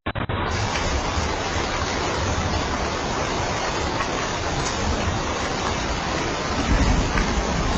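Steady rain falling, an even hiss with no break. It cuts out for a split second at the very start, where the recording is spliced, and a low rumble swells briefly near the end.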